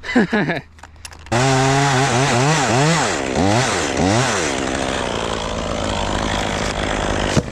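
Gas chainsaw revved up from idle in several throttle blips, then held at full throttle in a cut for about three seconds, cutting off suddenly near the end.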